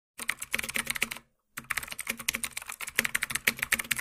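Fast, irregular computer-keyboard typing clicks, a sound effect for on-screen text being typed out, with a short break about a second in.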